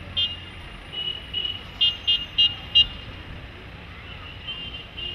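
Car horns tooting in street traffic: several short, high toots, the loudest a quick run of four about two seconds in, over a steady low rumble of traffic.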